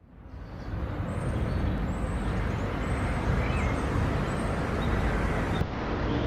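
Steady outdoor ambience: a low rushing noise with faint high chirps above it, fading in over the first second. About five and a half seconds in it cuts to a slightly different stretch of the same kind of noise.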